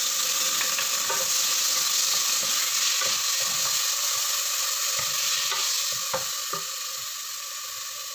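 Diced tomato sizzling in hot oil with sautéing garlic and onion in a stainless steel pot, stirred with a wooden spoon that knocks against the pot a few times. The sizzle is loud at first and eases in the second half.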